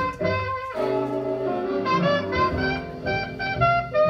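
Music played back through a single-ended tube amplifier with type 45 power triodes: a melody of held notes over accompaniment.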